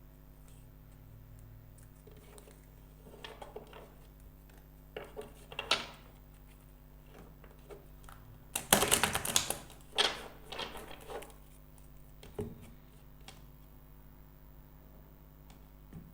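A deck of tarot cards being shuffled by hand: scattered soft rustles and clicks, then a dense, fast flutter of cards about halfway through, followed by a few more taps.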